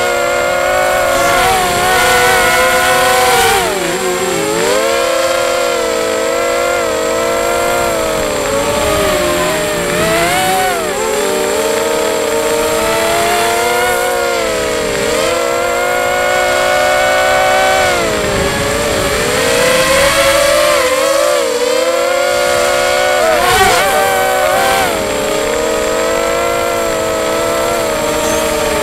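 QAV250 racing quadcopter's four brushless motors and propellers whining on a 4S battery, heard from on board. The pitch swoops up and down with the throttle, dropping sharply several times as the quad turns and climbs.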